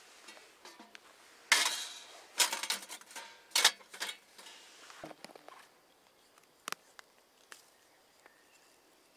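Folding sheet-metal hobo stove clinking and clattering as it is unfolded and set on a flat stone: a run of sharp metal clanks over a couple of seconds, then a few faint ticks.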